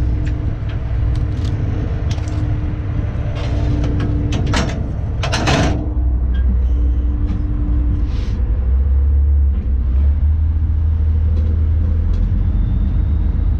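A fishing boat's diesel engine rumbling steadily, with a few sharp knocks and clatters about four to six seconds in.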